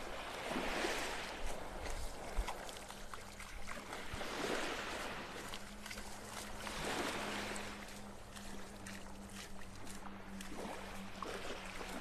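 Small, calm waves lapping and washing onto a sandy beach, each wash swelling and fading every two to three seconds. A faint steady low hum runs underneath.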